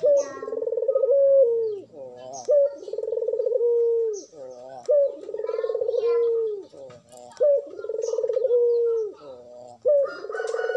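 Collared dove (puter) cooing over and over. Each coo is a long rolling note that drops at the end, followed by a short higher note, and the pattern comes about every two and a half seconds. Faint chirps of small birds come in between.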